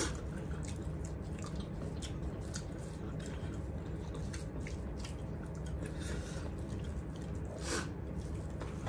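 Eating sounds: chewing and the soft squish of rice being mixed and scooped by hand, with many small scattered clicks and a slightly louder one near the end.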